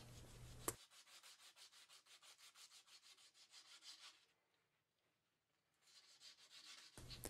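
Very faint hand sanding: abrasive paper rubbed in quick, even strokes over body filler on a repaired cast-iron lathe thread dial, stopping about four seconds in.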